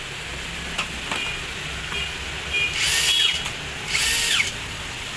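Makita cordless screwdriver run free in two brief trigger pulls, each about half a second, its motor whirring up and winding back down, about three and four seconds in. A couple of light clicks come about a second in.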